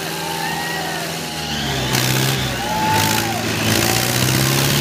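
Tractor diesel engine running steadily; its pitch drops slightly about two seconds in. Crowd voices and shouts sound over it.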